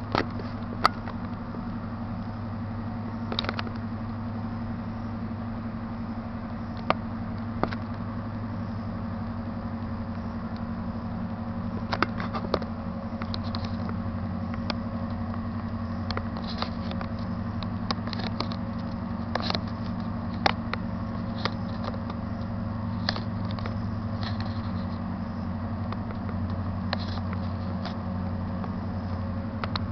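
A steady low engine drone, with scattered sharp clicks and ticks over it.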